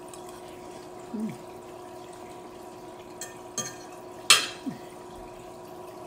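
Mukbang eating sounds: chewing, with short falling hums about a second in and just after the loudest moment, a sharp clink of cutlery on the plate. A steady hum runs underneath.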